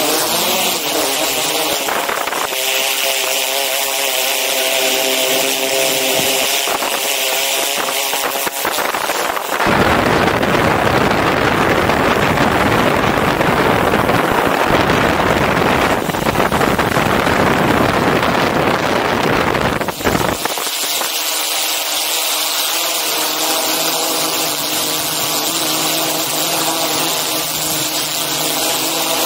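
DJI Inspire 2 quadcopter's propellers and motors whining steadily in flight. For about ten seconds in the middle, a louder rushing noise covers the whine.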